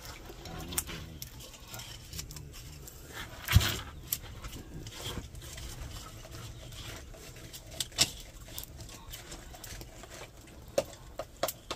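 Open wood fire crackling and popping as meat roasts on sticks in the flames, with a louder knock about three and a half seconds in and another about eight seconds in.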